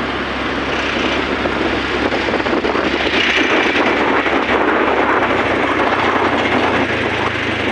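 Wind rushing over a phone microphone on a moving motorbike, with a steady low engine and road hum underneath.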